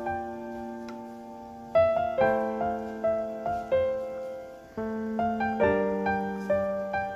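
Slow background piano music: single notes and chords struck every second or so and left to fade.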